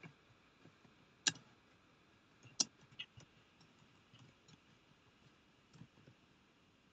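Faint, scattered clicks of computer keyboard keys during typing, with two sharper clicks about one second and two and a half seconds in.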